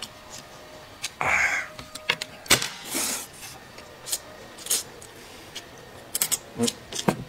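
Noodles being slurped with chopsticks: two longer sucking slurps, one about a second in and one about three seconds in, with sharp short clicks scattered between them.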